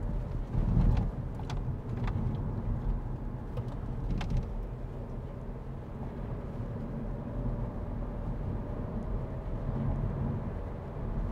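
Car driving along a road: a steady low engine and road rumble, with a few light clicks in the first few seconds.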